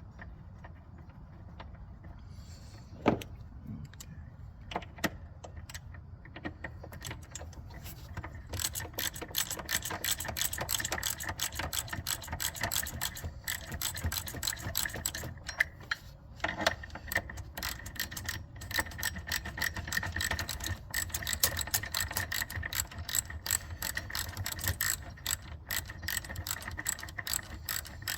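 Hand ratchet wrench clicking in rapid strokes as bolts are run in, with scattered clicks and a single sharp knock before the steady ratcheting starts about eight seconds in.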